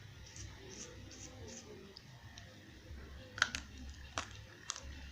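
Dry eko clay (edible clay) crunched between the teeth: a few sharp cracks in the second half, the loudest about three and a half seconds in, amid softer chewing.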